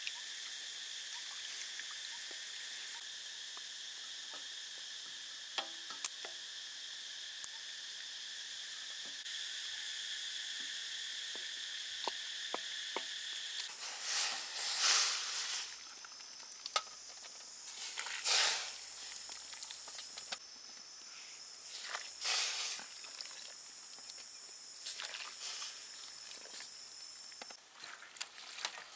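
Snails and shrimp simmering in a wok over a steady chirring of insects. About halfway through the chirring stops, and a bamboo strainer basket scoops through the steaming liquid in several loud sloshing splashes. Near the end the cooking liquid drains and pours into a metal tray.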